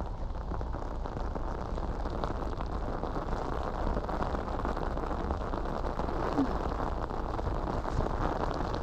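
Heavy rain falling steadily, a dense, even spatter of many drops.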